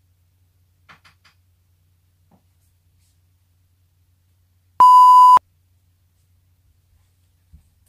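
A single loud electronic beep, one steady tone lasting about half a second and cutting off suddenly, the kind of tone used as a bleep sound effect. A few faint ticks come about a second earlier.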